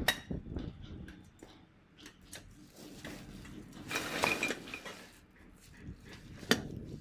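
Metal trampoline frame tubes in plastic wrapping being handled and fitted together: scattered clicks and knocks, a louder scraping rattle about four seconds in, and a sharp knock near the end.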